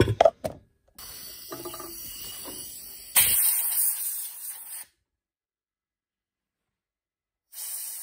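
A few knocks, then compressed air from a blow gun hissing as it blows dust out of the bell's wooden box. The hiss starts moderate, grows much louder for about two seconds and cuts off abruptly. A short burst follows near the end.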